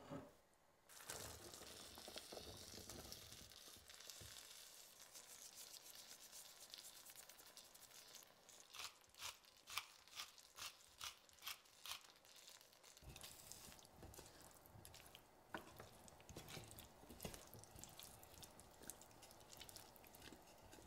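Quiet kitchen sounds at a pan of butter beans in leek sauce. Soft sizzling and shuffling as the beans go in is followed by a pepper mill grinding in about eight quick clicks, around two a second. Then a wooden spoon stirs the beans through the sauce with soft, wet scraping.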